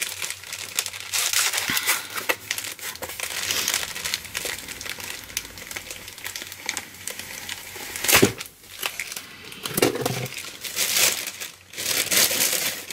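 Packaging crinkling and rustling as a boxed item is unwrapped by hand, with a few small clicks and a sharper knock about 8 seconds in.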